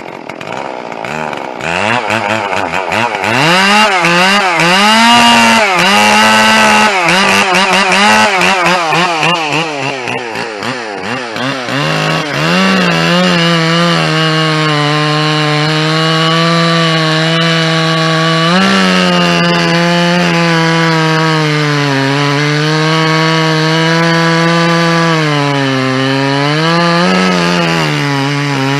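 Two-stroke chainsaw, freshly rebuilt and running a bit rich, revved up and down in quick blips. From about twelve seconds in it cuts into oak under load, its pitch holding steady with brief dips and recoveries.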